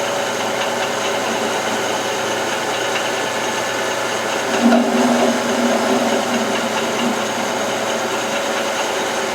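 Metal lathe running, turning a steel cutter blank: a steady motor and spindle hum, with a lower tone swelling in about halfway through for a couple of seconds.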